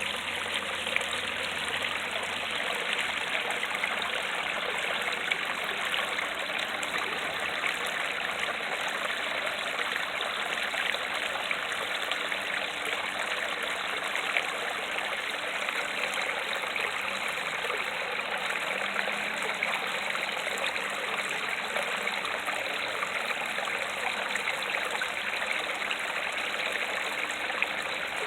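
Creek water falling over rocks in a small waterfall: a steady, unbroken rush of water that does not change.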